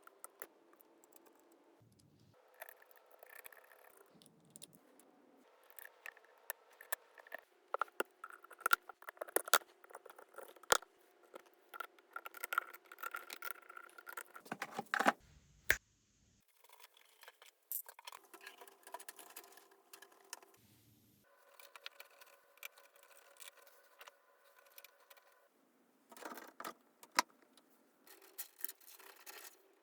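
Small hard parts being handled and fitted during a PC build: irregular clicks, taps, light rattles and scrapes, with a few sharper knocks. The sound comes in short stretches that start and stop abruptly.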